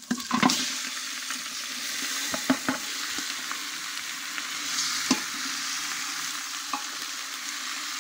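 Raw country-chicken pieces sizzling in hot oil in a metal pot as they are stirred in with a steel ladle, which knocks and scrapes against the pot a few times.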